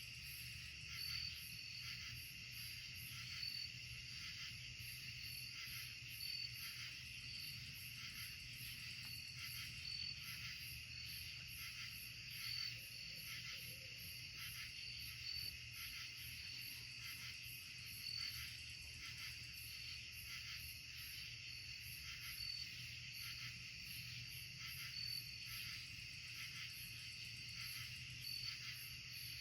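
Night chorus of insects such as crickets: steady high trilling, with one insect's short chirp repeating about once a second.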